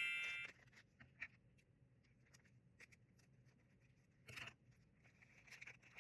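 A bright ringing tone fades out in the first half second. After it come faint small clicks and rustles of a blind-box package being handled and opened, with one short louder scrape about two-thirds of the way through.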